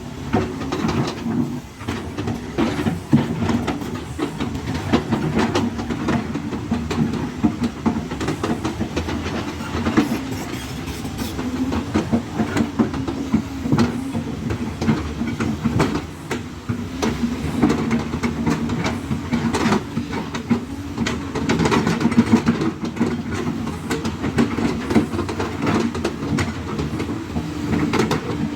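Excavator's diesel engine running steadily under load, with frequent irregular clanks and knocks from the machine as it works dirt and rock.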